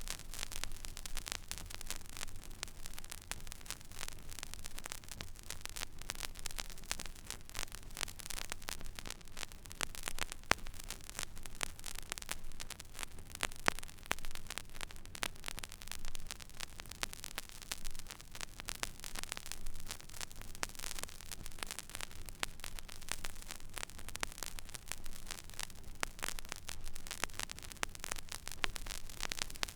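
Stylus running in the empty groove of a vinyl record: dense crackle and small pops over steady surface hiss, with a low hum underneath. A louder pop stands out about ten seconds in.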